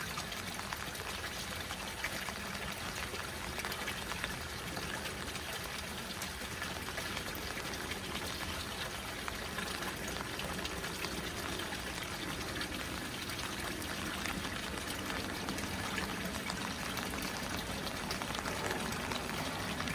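Water pouring steadily from a pipe spout into a small koi pond, with rain falling on the water surface.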